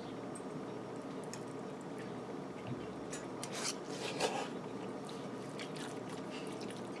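Quiet eating: chewing, with a few light clicks and scrapes of a fork on a plate, over a steady low hum.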